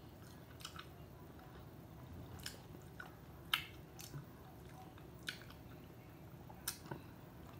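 Boiled crawfish being peeled by hand and eaten close to the microphone: faint chewing broken by a few short, sharp snaps and crackles of shell, the loudest about three and a half seconds in.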